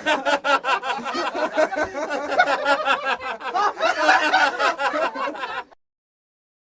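Laughter sound effect: people laughing in quick, pulsing bursts, cutting off abruptly near the end.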